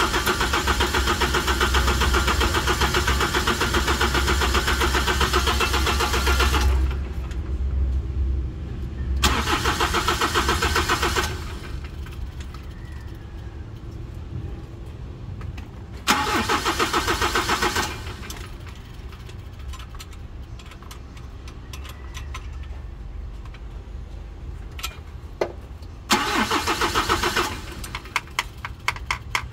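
Kia Bongo 3 diesel engine being cranked over by its starter in four separate attempts. The first runs about seven seconds, then shorter bursts of about two seconds come near 9 s, 16 s and 26 s. These are starting attempts on an engine with hard-starting trouble, after its fuel injectors were rebuilt and its fuel filter replaced.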